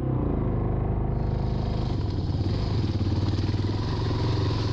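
Yamaha XT350's single-cylinder four-stroke engine running steadily as the bike rides along a rough dirt trail, its pitch holding even, with a clatter of stones and chassis under it.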